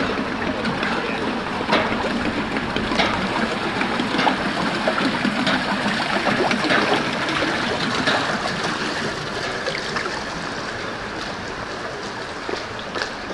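River water trickling and lapping around a paddled inflatable kayak, with short splashes and drips from the paddle now and then.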